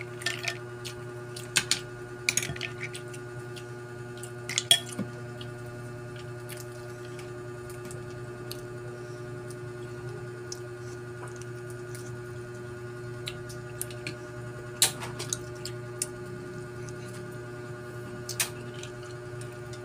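Eating sounds from shrimp and mussels taken by hand: scattered clicks and clinks of shells and a spoon against plates, with chewing. A steady hum runs underneath.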